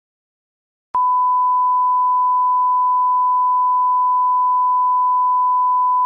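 Steady, unchanging reference test tone, a single pure pitch, coming on abruptly with a faint click about a second in. It is a line-up tone of the kind that plays under a tape leader.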